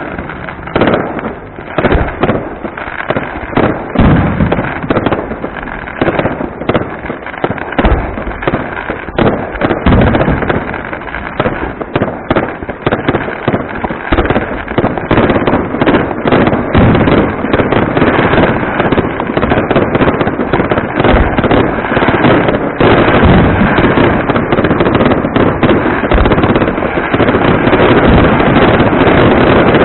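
Fireworks display: aerial shells bursting in repeated loud bangs with crackling. From about two-thirds of the way through, the bursts come so fast that they run together into a dense, near-continuous barrage.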